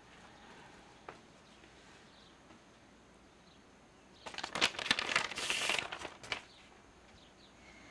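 Paper rustling and crinkling for about two seconds as sheets are pulled out of a paper envelope. A single light knock comes about a second in.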